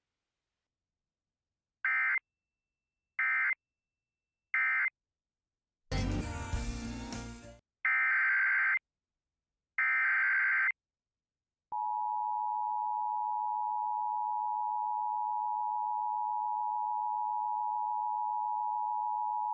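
Emergency Alert System data bursts from a Sage EAS ENDEC. First come three short buzzy SAME end-of-message bursts about a second apart. Then a loud harsh noise and two one-second SAME header bursts open the next alert. From about twelve seconds in, the steady two-tone EAS attention signal (853 and 960 Hz) holds.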